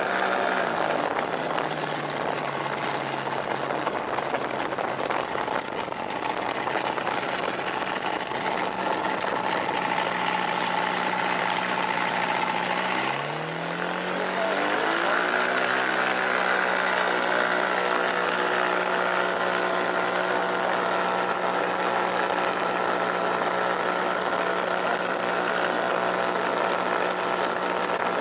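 Fox V4 ultralight aircraft engine running on the runway. Its pitch drops just after the start and holds low, then about halfway through it dips briefly and rises over a couple of seconds as the throttle is opened, holding a higher steady pitch to the end.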